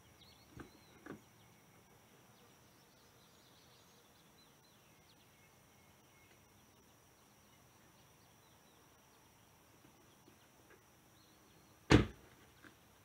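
An SUV door slammed shut with one sharp thump near the end, after two faint clicks near the start, over a faint steady high background tone.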